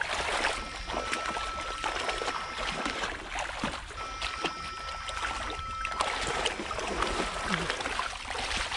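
Water splashing and sloshing around a person's legs as he wades steadily through shallow, knee-deep water, with a faint steady high whine heard in two stretches through the middle.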